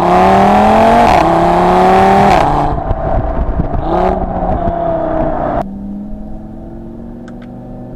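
Audi TT RS's turbocharged 2.5-litre five-cylinder heard through its sports exhaust, accelerating hard: the pitch climbs and drops twice at quick upshifts, with a brief flare about halfway. Near the end the throttle is lifted and it settles to a quieter, steady drone.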